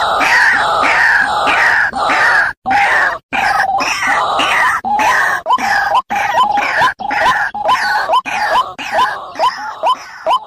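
White-breasted waterhen calling: a loud, harsh, rapidly repeated "kruak" chorus. After a few seconds it settles into a steady run of short rising notes, about three a second, with a few brief breaks.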